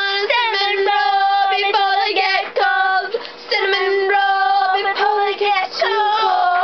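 A young female voice singing, holding long, steady notes in short phrases with brief breaks between them.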